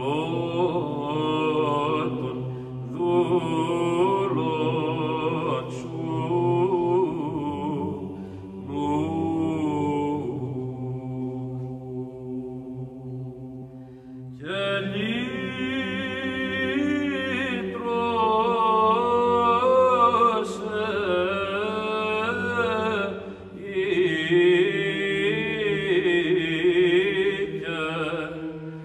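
Background music of vocal chant: a melismatic sung line over a steady held drone, thinning out around the middle before a fuller phrase comes in about halfway through.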